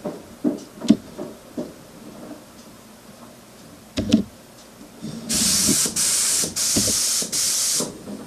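Airbrush hissing compressed air in four short bursts, starting about five seconds in, as its trigger is pressed and released. Before that, a few light clicks and knocks from handling the airbrush, with a sharper click just before the bursts.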